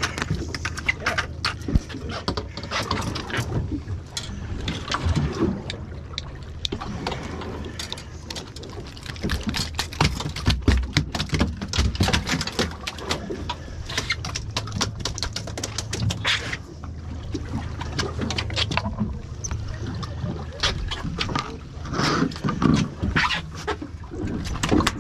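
Irregular knocks and clatter on a small fibreglass fishing boat with water splashing, under a low steady hum.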